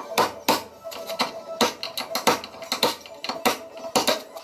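Hammer blows on a chisel knocking rivets out of a truck cab's steel firewall: sharp metallic strikes, roughly three a second and unevenly spaced.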